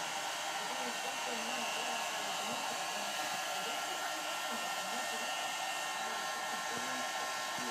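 Handheld hair dryer running steadily: an even blowing hiss with a steady motor whine.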